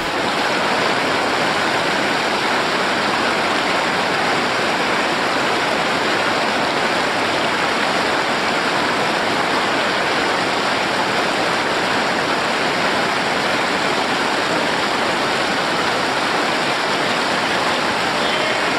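Rushing river water of white-water rapids, a steady, loud rush with no breaks.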